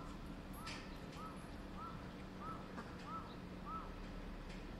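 A short animal call repeated seven times at an even pace, about one and a half calls a second: brief high notes that rise and fall in pitch.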